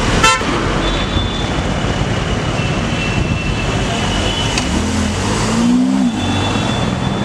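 Loud, steady street traffic noise, with a short car horn toot just after the start.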